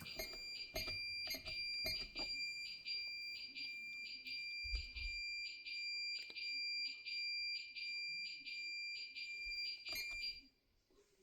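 Pyronix Enforcer alarm panel sounding its entry countdown: a high, evenly pulsed beeping, with a few keypad button clicks near the start. The beeping cuts off suddenly near the end as the code and tick are entered and the alarm is unset.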